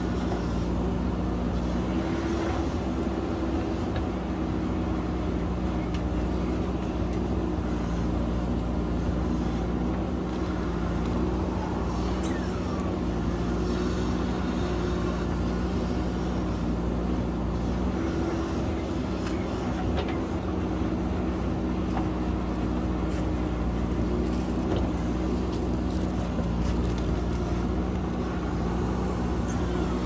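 JCB backhoe loader's diesel engine running steadily under load as the machine works loose rock, with a few faint clanks.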